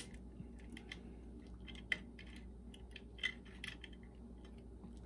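Faint, scattered small clicks and ticks of a screwdriver working screws out of a boombox's circuit board, with two sharper clicks near the middle.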